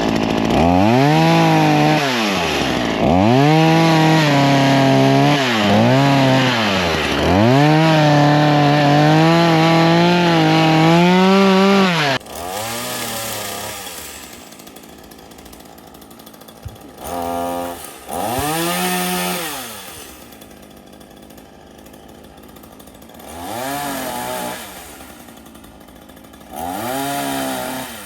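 Two-stroke chainsaw cutting small branches, revved hard for about twelve seconds with its pitch dipping and climbing back again and again as it bites. It then drops to idle, with four short blips of the throttle after.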